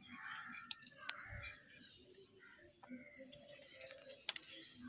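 Faint outdoor background of birds calling, with a few sharp clicks about four seconds in.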